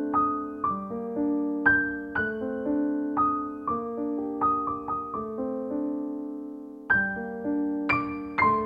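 Background piano music: single notes and chords struck every half second or so and left to ring. A chord fades out slowly over a couple of seconds without new notes about five seconds in, before the playing resumes.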